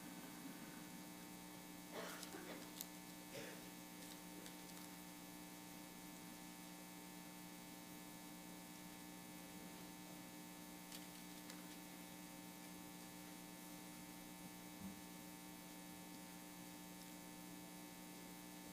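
Near silence with a steady low electrical mains hum, and a few faint soft noises about two to three and a half seconds in.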